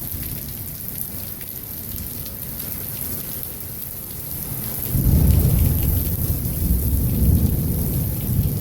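Heavy rain pouring steadily, then a loud low rumble of thunder breaks in about five seconds in and keeps rolling.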